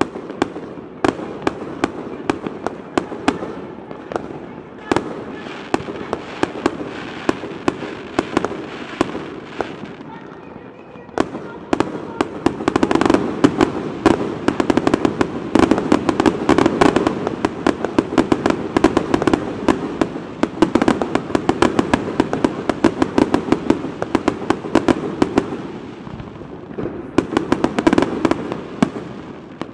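Fireworks display: a rapid run of sharp bangs and crackling bursts, fairly sparse at first, growing much denser about a third of the way in, and thinning again near the end.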